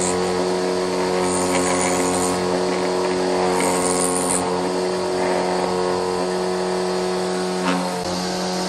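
Belt-driven woodworking machine running steadily, its spinning cutter head shaving a wooden board, with a constant motor hum. The high hiss swells twice.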